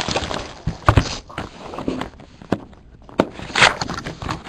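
Plastic shrink wrap being torn and peeled off a sealed cardboard box of trading cards, crinkling, with several sharp knocks and taps as the box is handled and opened.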